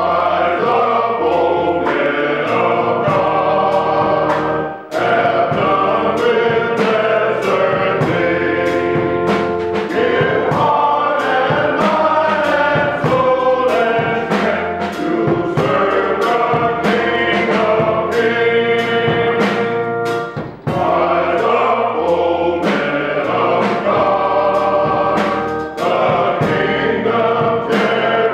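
Men's choir singing a gospel hymn together, with a steady beat in the accompaniment.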